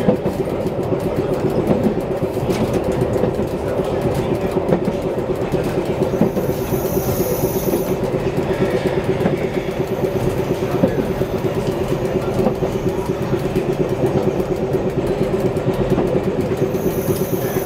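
Tram running along the track, heard from inside the driver's cab: a steady hum and rumble of wheels on rail. A thin high tone comes in twice, about six seconds in and again near the end.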